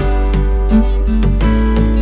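Background music: an instrumental track with a steady beat and deep bass.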